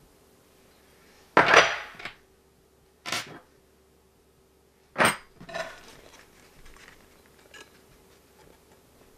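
Small metal trimmer parts (a metal rider plate, a blade nut and T-handle wrenches) clanking down and being handled on a countertop: three sharp metallic clanks about a second and a half to two seconds apart, the first the loudest, followed by lighter clicks and handling noise.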